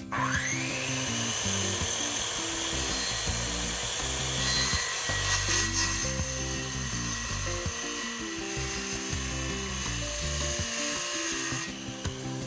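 Circular saw spinning up with a sharply rising whine, then cutting through wooden boards with a steady high-pitched whine that stops near the end. Background music plays underneath.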